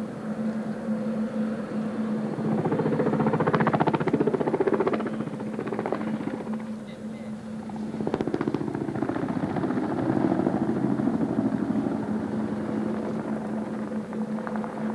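Boeing Vertol 107 (HKP 4) tandem-rotor helicopter flying by, its rotor blades chopping rapidly. The sound swells loudest a few seconds in, dips briefly, then grows again as the helicopter pulls out of a steep dive into a low pass.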